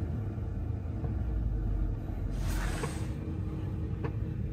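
Low rumble inside a Tesla's cabin as the electric car creeps slowly while parking itself, with a brief hiss about two and a half seconds in and a few faint clicks.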